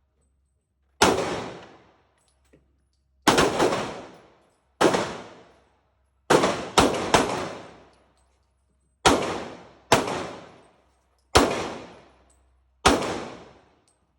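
Handgun shots, about eleven at uneven spacing, some fired in quick pairs, each followed by a ringing echo that dies away within a second.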